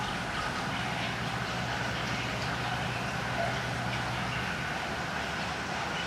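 Steady background noise with a low hum that stops about four and a half seconds in.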